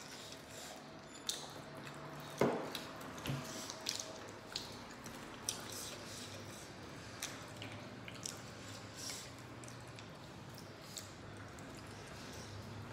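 Eating by hand: wet lip smacks, chewing and soft squishes of rice and curry being pressed between the fingers, many small scattered clicks with a sharper one about two and a half seconds in, over a faint steady low hum.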